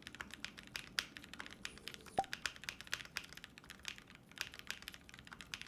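Typing on a TG67 V2 custom mechanical keyboard with Hippo switches, a polycarbonate plate and PBT keycaps: a quick run of very quiet keystrokes with a short pause about halfway through. The quiet, muted sound is put down to the switches, which the builder thinks might be a bit over-lubed.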